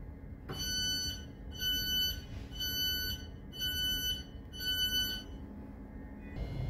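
Thameslink Class 700 train's door warning beeps, five pitched beeps about one a second, over the carriage's steady low rumble; typical of the doors closing before departure.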